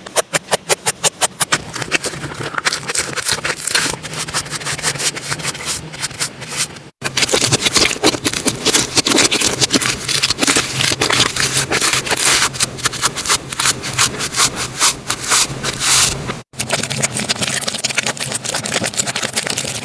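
Slime being squeezed and pressed by hand, a dense run of sticky clicks and crackles, with a fast regular clicking at the start. The sound breaks off abruptly twice where one clip cuts to the next.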